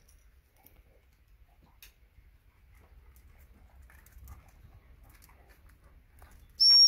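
Faint scuffs and clicks, then near the end one short, steady, high-pitched blast on an ACME 210.5 gundog whistle: the stop whistle, the signal for the springer spaniel to sit before she is fed.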